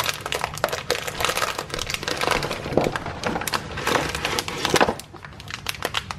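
A clear plastic bag of dried pasta crinkling and shredded wood-wool packing rustling as a hand digs it out of a cardboard box. A dense run of crackles that thins out after about five seconds.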